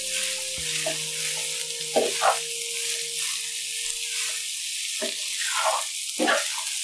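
Cooked rice sizzling in hot ghee in a non-stick kadai while a wooden spatula stirs and tosses it to break up lumps, with a steady sizzle and a few louder scrapes of the spatula through the rice and against the pan.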